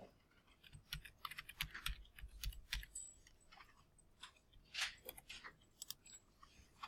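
Faint computer keyboard typing and mouse clicks, irregular short clicks with a quick run of keystrokes about one to three seconds in.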